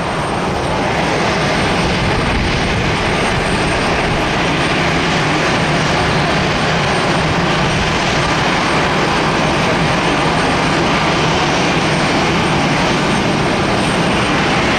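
Steady jet noise from an Airbus A350-900's Rolls-Royce Trent XWB turbofan engines as the airliner turns onto the runway and lines up for takeoff.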